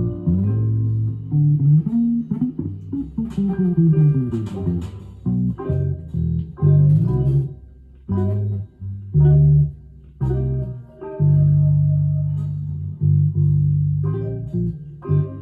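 Headless Cort guitar with flatwound strings played alone: plucked single notes in a jazz line, with notes sliding in pitch about three seconds in and a long held low note about eleven seconds in.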